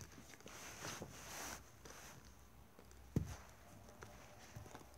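A puppy squirming on carpet and pawing at a toy bone: faint rustling and scuffling, with a single thump about three seconds in.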